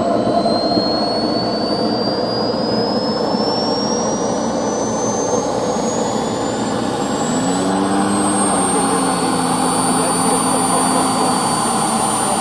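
The DLE 55 single-cylinder two-stroke petrol engine of a large radio-controlled Tiger Moth model running steadily in flight, a constant drone. A thin high whine slowly rises in pitch throughout, and a brief low hum comes in about halfway through.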